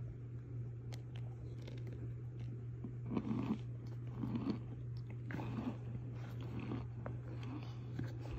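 Solid cornstarch chunks crunching as they are pressed and crumbled, in short crunches about once a second from about three seconds in, over a steady low hum.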